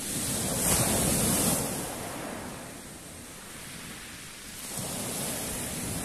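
Black Sea waves breaking and washing up a pebble beach: a big surge about a second in, then a smaller one near the end.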